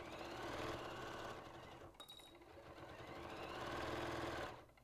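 Janome sewing machine stitching through many layers of fabric and bias tape, running in two bursts with the motor speeding up in each; it stops shortly before the end.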